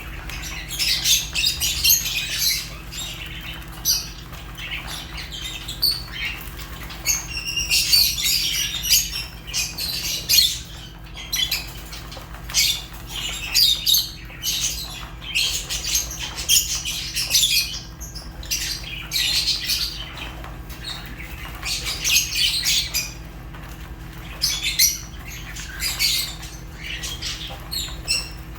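Lovebirds (Fischer's and rosy-faced) chirping and squawking: shrill, high-pitched calls in dense clusters every second or two, over a steady low hum.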